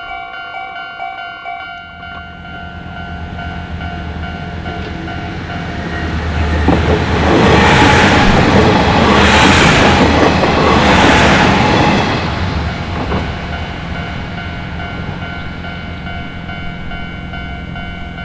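Japanese level-crossing warning bells ringing steadily, two sets out of step with each other, while a train passes through the crossing. The train's rumble builds and is loudest with wheel clatter from about seven to twelve seconds in, then fades while the bells keep ringing.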